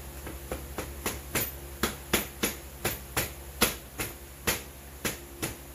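A small hammer taps the halves of a McCulloch 10-10 chainsaw crankcase together, seating the snug halves. The sharp taps come about three a second, grow louder through the middle and ease off near the end.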